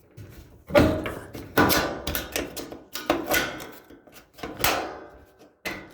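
Sheet-metal dryer cabinet panel clanking and rattling as it is worked loose from its clips, about six separate knocks with a short metallic ring after each.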